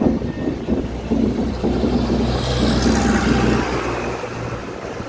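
Passenger train running, heard from an open coach door: a regular clatter of wheels over rail joints over a steady low rumble. A rush of wind rises about halfway through, and the rumble fades near the end.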